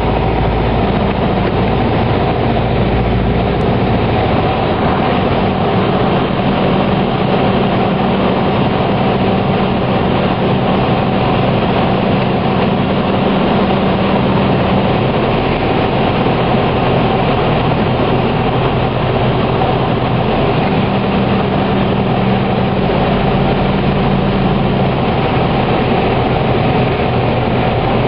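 Steady engine drone and rushing air inside the cabin of a small propeller aircraft during approach, touchdown and rollout. A low hum in the engine note drops away about halfway through and comes back briefly later.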